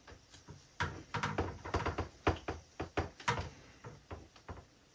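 Irregular plastic clicks and knocks from a hand-held PEX pipe cutter being handled and fitted onto PEX-A tubing, starting about a second in and dying away near the end.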